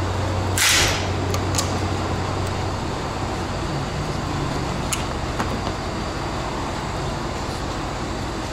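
Plastic clips and the plastic engine-bay cover being pried loose with a plastic trim-clip remover: one short loud scraping hiss about half a second in, then a few light clicks, over steady workshop noise with a low hum that fades out about three seconds in.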